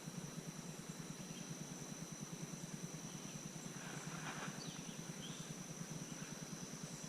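Outdoor creek ambience: a steady high insect drone over a rapid low pulsing, with a few faint chirps about four seconds in.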